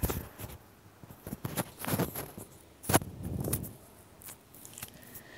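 A metal spoon stirring dalia (broken wheat) cooking in a metal pan: irregular scrapes and clinks against the pan, the loudest right at the start and about three seconds in.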